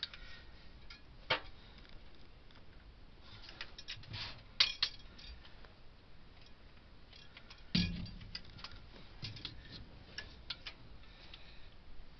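A socket and torque wrench clink and click on the cylinder-head bolts of a GM 250 straight-six as each bolt is rechecked for 95 foot-pounds. The metal clinks are scattered, loudest about halfway through, with a duller knock a little later.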